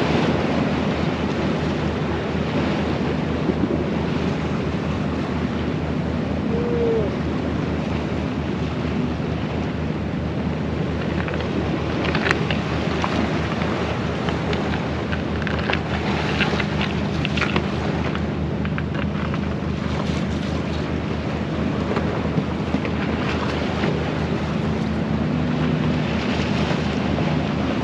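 Wind buffeting the microphone and sea surf washing on a rocky shore, a steady even noise, with a low steady drone underneath and scattered faint ticks in the middle.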